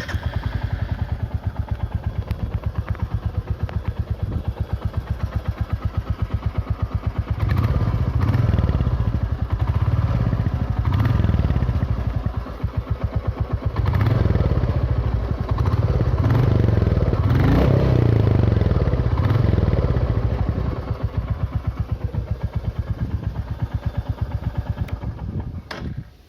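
Royal Enfield Classic 350 single-cylinder motorcycle engine idling with a steady thumping beat, then revved up and down repeatedly through the middle, and settling back to idle.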